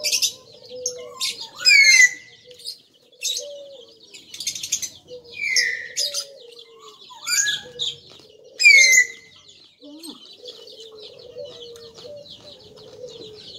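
Songbirds chirping and calling, with several loud whistles that slide down in pitch, the loudest about 2 and 9 seconds in, over steady high twittering.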